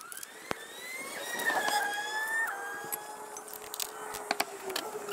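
An engine accelerating through the gears: its pitch climbs, drops at each shift about a second in and again about two and a half seconds in, then holds lower as it eases off. Scattered sharp clicks sound alongside.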